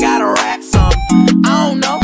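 Background hip hop music with a beat, held chords and a vocal line sung over it.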